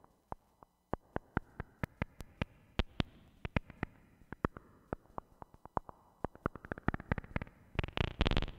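Moog Mother-32 and Voyager XL patched together, with the Voyager feeding the Mother-32's FM and external audio inputs, playing a sequence of short clicky synth blips, several a second. Near the end the notes open out into longer, brighter and louder tones.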